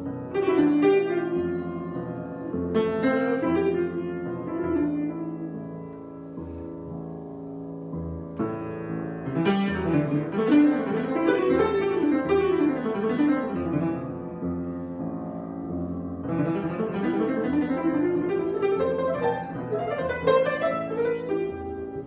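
Solo grand piano improvisation: flowing runs and chords, thinning to a softer stretch about a third of the way in, then busier, louder passages that carry on to the end.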